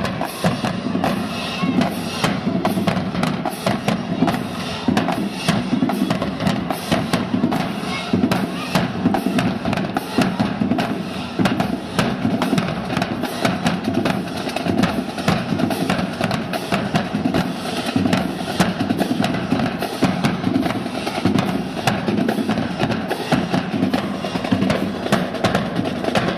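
Marching band drumline playing, snare and bass drums beating a steady, driving rhythm.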